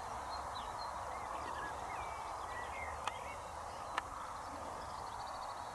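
Wild birds singing: scattered short, varied phrases and a brief rapid trill near the end, over a steady background hiss. Two sharp clicks, about three and four seconds in.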